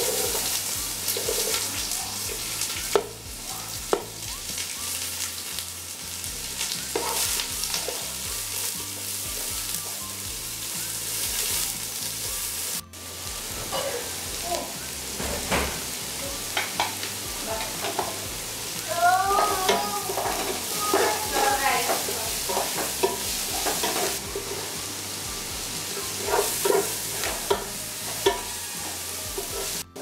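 Sliced shallots sizzling in hot oil in a nonstick pot, stirred and scraped with a wooden spatula. Short pitched chirps sound in the background about two-thirds of the way through.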